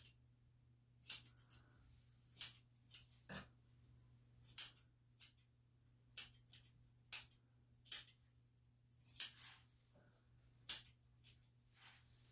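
Grooming scissors snipping through dog hair on a leg: about a dozen crisp, separate snips at an uneven pace of roughly one a second, now and then two in quick succession.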